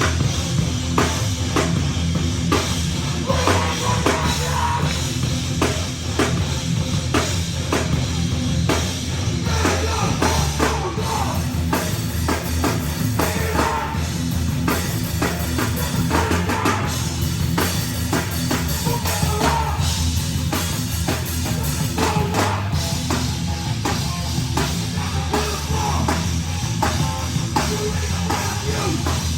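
Live heavy rock band playing loudly, driven by a drum kit with rapid, regular hits over heavy bass.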